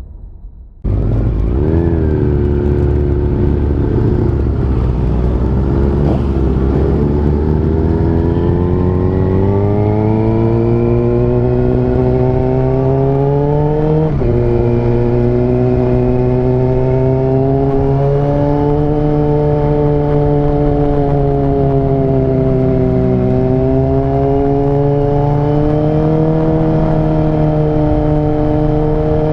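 Yamaha R6 inline-four sport-bike engine under way, heard from the bike: it cuts in about a second in, its note climbs slowly through a gear, drops at an upshift about halfway through, then holds fairly steady with gentle rises and falls of throttle.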